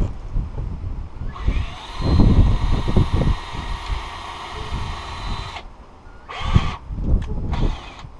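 Power drill driving a self-tapping screw to pre-drill a screw hole in a storm door: one steady whining run of about four seconds, then a couple of short bursts near the end.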